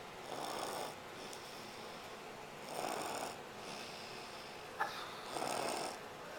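A man snoring in his sleep: three loud snores about two and a half seconds apart, with quieter breathing between them and a short click just before the third.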